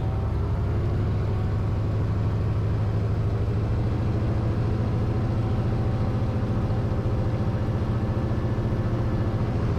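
Cessna 210 Centurion's six-cylinder piston engine and propeller running at low, steady taxi power, a constant drone heard from inside the cockpit.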